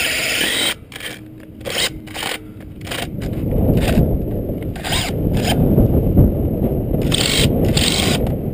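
Power drill with a metal bit grinding into the rusted steel sleeve of an old 3/8" rock bolt in its hole, drilling it out until it heats and breaks free. It runs, cuts off sharply under a second in, leaves a short stretch of clicks and a low hum, then grinds steadily again from about three seconds in.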